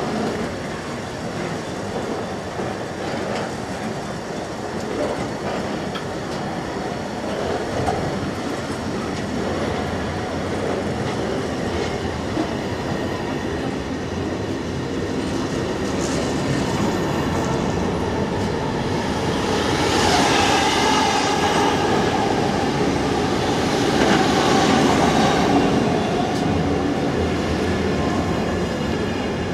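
Container flat wagons of an intermodal freight train rolling past close by: a steady rumble and clatter of steel wheels on the rails. From about two-thirds of the way through, a louder high wheel squeal comes and goes for several seconds.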